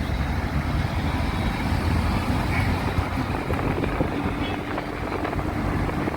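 Steady outdoor noise of road traffic, a constant low rumble with a faint hum appearing about two thirds of the way through.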